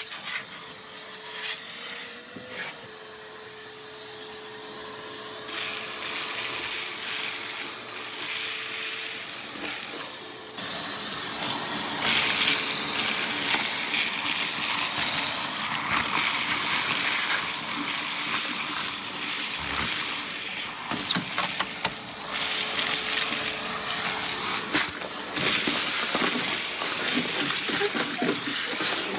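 Shop vacuum running, its hose nozzle sucking rust flakes, grit and debris off a rusted car floor pan, with a steady motor hum and many small rattling clicks as pieces go up the hose. The suction noise grows louder about ten seconds in.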